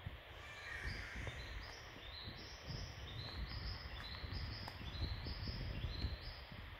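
A high-pitched animal call in short notes that step up in pitch, repeated in several runs of four or five notes, over a low rumble.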